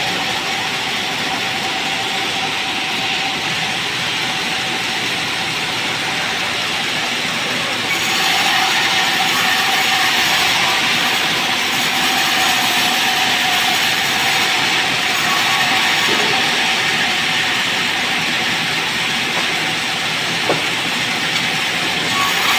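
Sawmill band saw cutting lengthwise through a merbau log: a steady whine from the running blade over the hiss of the cut. It gets louder about eight seconds in.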